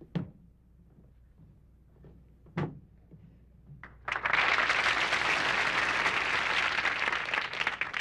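A couple of short, sharp knocks, then a studio audience applauding from about four seconds in, dying away near the end.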